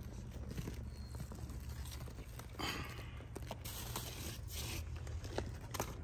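Cucumber vines and leaves rustling and tearing as they are handled and pruned, with several sharp snaps and two short rustling bursts, over a steady low rumble.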